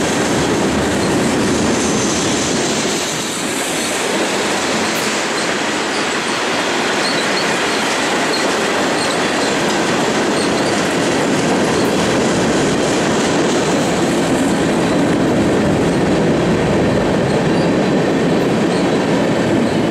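Freight train cars rolling past close by: a loud, steady rush of steel wheels on rail that holds at the same level throughout.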